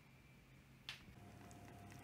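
Near silence: room tone, with one brief click about a second in, followed by a faint steady hum.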